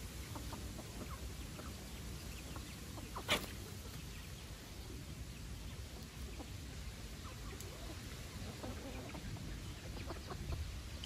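Chickens, roosters and hens, clucking in short scattered calls as they peck at feed, with one sharp, louder sound about three seconds in.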